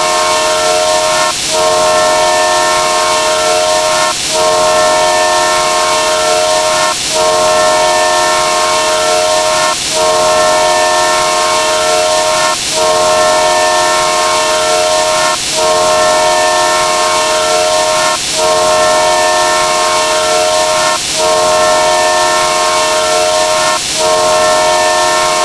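Train horn sound effect: a loud multi-note chord horn sounding in long blasts, each about two and a half seconds, with a brief break between them, over a steady rushing hiss.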